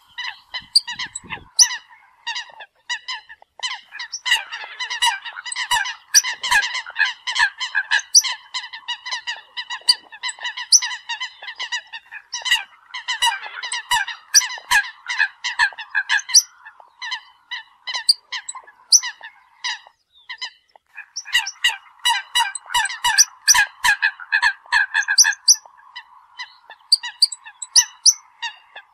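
A flock of Eurasian coots calling: many short calls overlapping in quick succession, with a brief lull about twenty seconds in.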